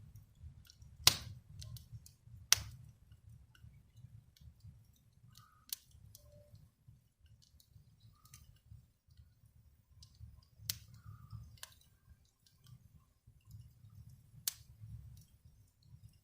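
Fire burning in a fireplace: a low steady rumble of the flames with sharp crackles and pops every few seconds.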